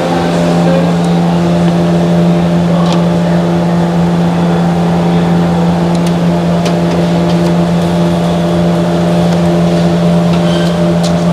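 A steady motor hum with a strong low tone, unchanging throughout, with a few light clicks over it.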